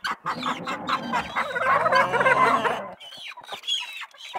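A mixed flock of chickens and helmeted guineafowl clucking and calling, many calls overlapping for about three seconds, then thinning to a few sharp calls that fall in pitch.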